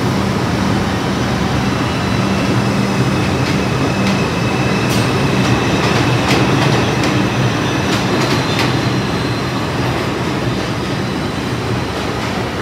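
New York City subway train running through the station: a steady rumble with a low motor hum that fades after about four seconds. In the middle come a string of sharp clicks from wheels crossing rail joints and a faint high wheel squeal.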